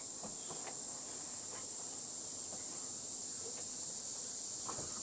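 Steady high-pitched chorus of insects. A few faint soft pops come from a tobacco pipe being puffed.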